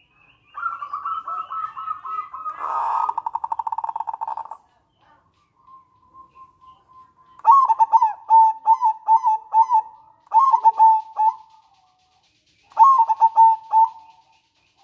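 Zebra dove (perkutut) singing: a run of notes that breaks into a fast rattling trill a few seconds in, then, after a pause, three bursts of rhythmic cooing notes.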